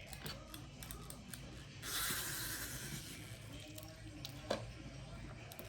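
Small handling noises of a plastic toy and slime: a brief rustling hiss about two seconds in, scattered small clicks, and one sharper click near the end.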